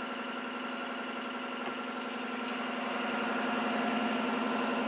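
Maruti Suzuki Alto 800's three-cylinder petrol engine idling steadily, heard from inside the cabin, growing a little louder in the second half.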